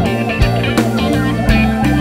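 Background music with a beat and sustained bass notes.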